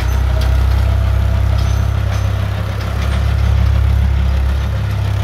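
HMT tractor's diesel engine running steadily as it pulls a tined cultivator and log leveller through the field, a continuous low drone.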